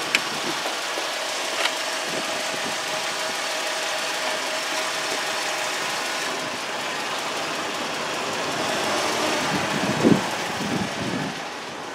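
Steady mechanical running noise with a faint hum, broken by two sharp clicks in the first two seconds and a few short knocks around ten seconds in.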